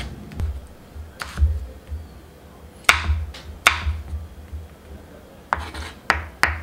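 Kitchen knife cutting tomato on a wooden cutting board: irregular knocks of the blade striking the board, about six, with gaps of up to a second and a half between some.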